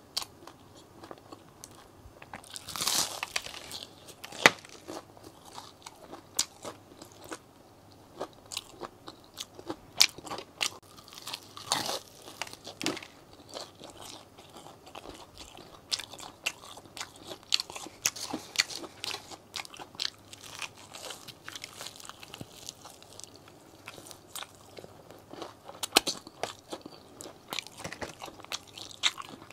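Close-miked eating of KFC breaded fried chicken: crunchy bites into the crispy coating and wet chewing, full of sharp crackles. A loud crunching bite comes about three seconds in and another around twelve seconds in.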